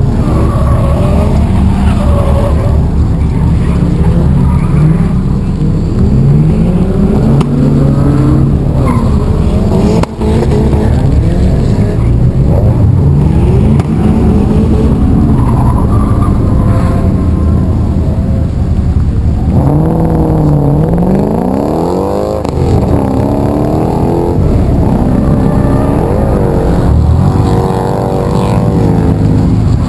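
1991 Nissan 240SX's KA24DE inline-four running at low revs through a 3-inch exhaust, its pitch wandering slightly. From about twenty seconds in it is revved up and down several times.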